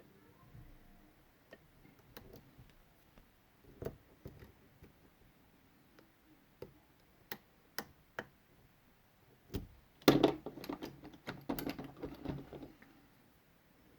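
Lock pick and tension wrench clicking in a Medeco Biaxial 51S rim cylinder as its pins are picked: scattered sharp clicks, then a louder, denser clatter about ten seconds in that lasts a couple of seconds.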